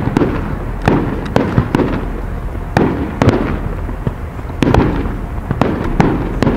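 Fireworks display: aerial shells of up to 3-inch calibre bursting in quick succession, several sharp bangs a second, each followed by rumbling echo.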